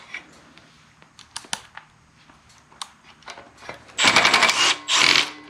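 A cordless power driver runs in two short bursts, one of about a second and then a shorter one, backing out the ignition coil's mounting bolts on a small engine. Before that there are a few light clicks and taps of tools being handled.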